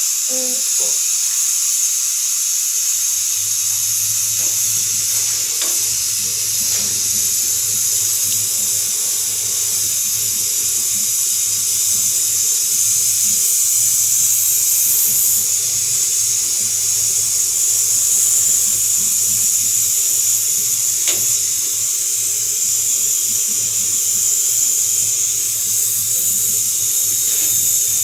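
Steady loud hiss, like gas rushing from a torch or a line, during work on a refrigeration compressor. A low, steady electric hum joins it about three seconds in.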